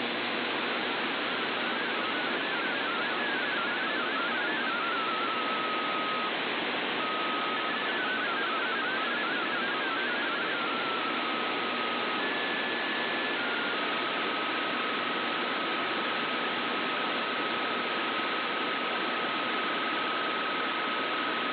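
Shortwave AM reception of the VOA Radiogram digital broadcast: heavy static hiss, with faint MFSK32 data tones warbling through the first half. From about two-thirds in, a single steady tone carries the MFSK picture transmission.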